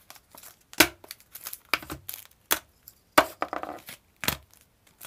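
Art-supply packages (a pencil tin, a spray can, plastic blister packs and boxes) dropped one after another onto a hard marble tabletop: a string of sharp clacks and knocks, about five loud ones, with some plastic crinkling between.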